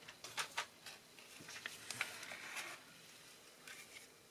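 Cut pieces of patterned paper being handled and laid down on a card: faint rustling with a few light taps.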